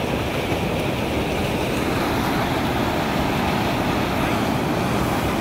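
Floodwater gushing through a concrete sluice gate and churning below it: a steady, unbroken rush of water.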